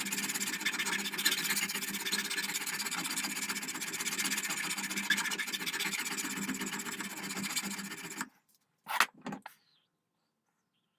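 Brass trigger guard parts being worked with an abrasive tool: a steady rasping noise that stops suddenly about eight seconds in, followed by two short knocks.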